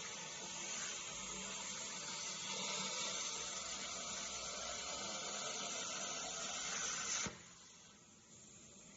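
CNC plasma cutter torch hissing steadily as it cuts a metal tube, then cutting off sharply about seven seconds in, leaving only a faint background.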